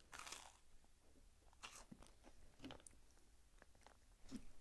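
Faint chewing of a bite of toast: a soft crunch just after the start, then scattered quiet mouth clicks.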